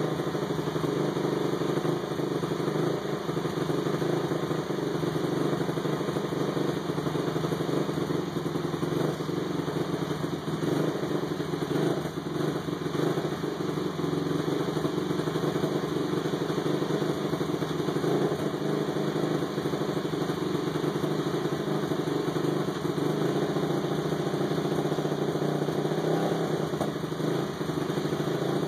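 Honda TRX450R's single-cylinder four-stroke engine, freshly rebuilt to 501cc with a +3 mm stroker crank and big-bore kit, idling steadily on one of its first runs.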